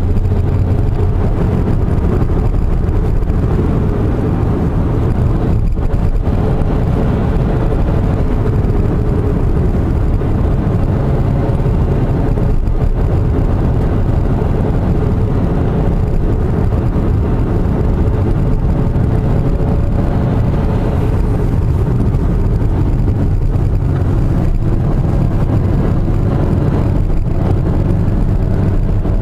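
Car engine and tyre noise heard from inside the cabin while driving along a paved road at steady speed.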